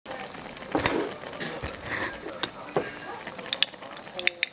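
Sukiyaki simmering in an iron pan: beef, tofu and shirataki sizzling and bubbling in the sauce, with scattered sharp crackles, more of them near the end.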